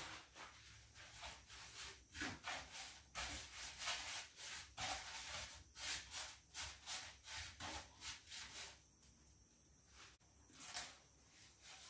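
A hand rubbing spice paste onto sardines on a steel plate: soft, faint rubbing and smearing strokes about twice a second. The strokes stop about three-quarters of the way through, with one more near the end.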